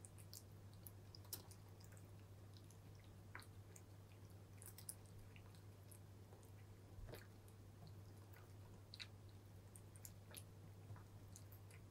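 A cat chewing dry kibble: faint, irregular little crunches and clicks scattered through, over a steady low hum.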